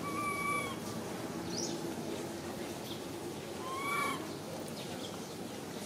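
Macaque coo calls: a short, flat, high call at the start and an arched one that rises and falls about four seconds in, each with clear overtones, over steady background noise.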